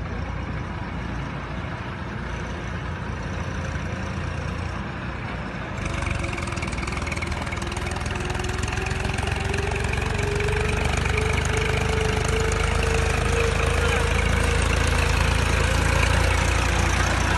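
Tractor engine running, stepping up in level about six seconds in, then its pitch rising slowly as the revs climb.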